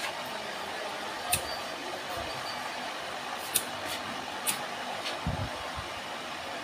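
Automatic egg incubator running: a steady whirring hum from its fan and tray-turning machinery, with three light clicks and a short low knock about five seconds in.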